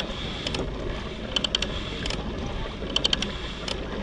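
Kayak under way: a steady wash of water and wind, with small clusters of three or four quick mechanical clicks repeating about every one and a half seconds.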